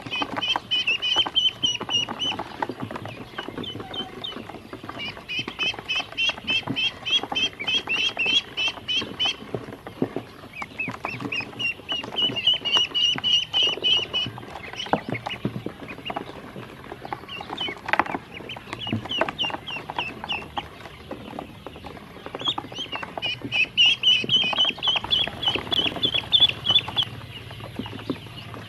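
Ducklings peeping in quick runs of high, rapid calls, several seconds at a time with short pauses between, mixed with scattered taps of their feet and bills on the plastic basin.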